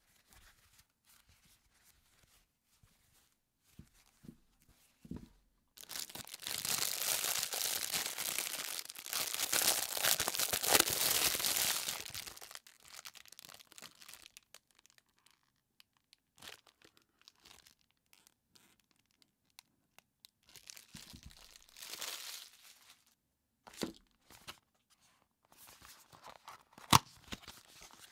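Clear plastic wrapping crinkled and torn off a ball, loud and continuous for about six seconds. Quieter rustling and a few sharp clicks follow as packaging is handled.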